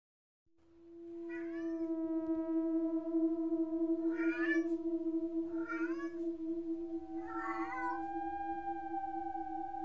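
A domestic cat yelling four times in short, wavering calls, over a steady droning tone.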